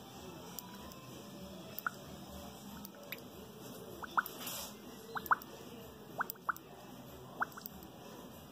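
Motor oil being poured into the sight-glass oil reservoir of a Comet APS 41 diaphragm pump: about a dozen short, faint plops and drips scattered irregularly as the stream falls into the oil and trapped air is bled out of the pump's crankcase.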